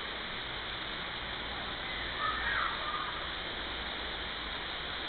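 Steady rushing of water, with a few faint short bird calls about two seconds in.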